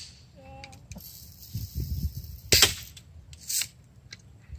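A BB gun firing once, a single sharp crack a little over halfway through, followed by a smaller click about a second later. A faint hiss comes before the shot.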